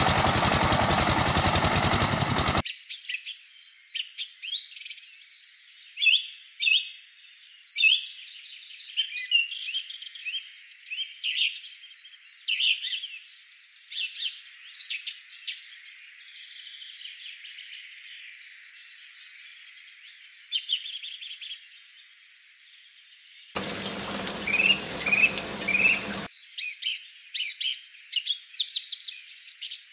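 Songbirds chirping and trilling, many short high calls one after another. Two stretches of loud, even hissing noise cover them, one in the first two and a half seconds and another of about three seconds near the end.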